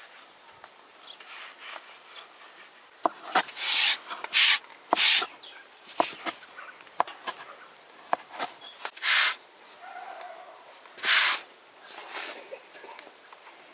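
Knife cutting a floured roll of dough into pieces on a wooden board. Sharp taps of the blade on the board come among short scraping, rustling strokes through the dough and flour.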